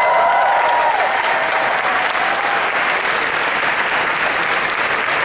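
Audience applauding, with a few voices cheering in the first second over steady clapping.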